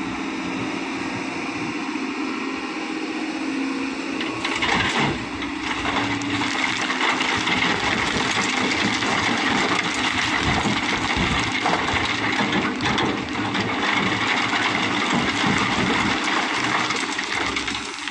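Hydraulic excavator's diesel engine running, then from about four seconds in a bucketful of sand and stones pouring through a steel mesh screen into a dump truck's bed: a long, loud rush of sand with many stones clattering.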